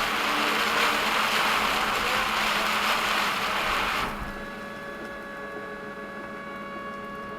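Torrential rain drumming hard on a moving car's roof and windscreen, heard from inside the cabin; the rain noise cuts off suddenly about four seconds in, leaving a quieter steady hum.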